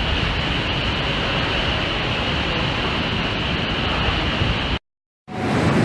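Steady rushing noise of hurricane wind and rain on the microphone. It drops out abruptly for about half a second near the end, then returns with a deeper rumble.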